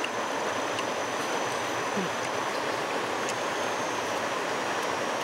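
Stream water rushing steadily over rocks in a small cascade.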